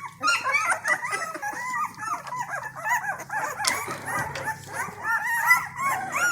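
A litter of two-week-old basset hound puppies whimpering and squeaking: many short, high-pitched cries overlapping one another, with no break.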